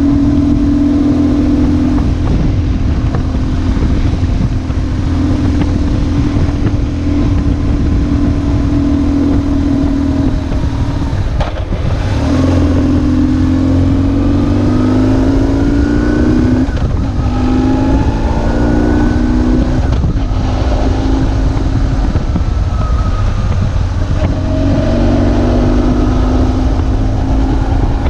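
BMW R1150GS air/oil-cooled boxer twin running under way, with wind noise over it. The engine note holds steady at first, then after a brief break about halfway through it rises and drops back several times as the bike accelerates through gear changes.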